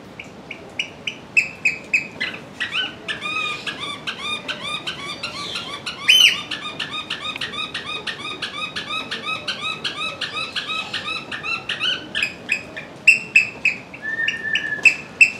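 Eurasian oystercatcher calling shrilly. Separate short, high piping notes speed up about two seconds in into a fast, continuous run of piping that lasts about ten seconds, then slow back to separate loud notes near the end.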